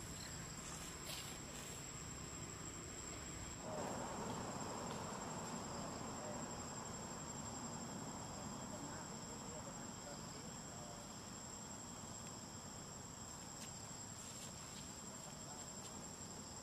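Insects giving a steady, high-pitched drone. A soft rushing noise swells about four seconds in and slowly eases off.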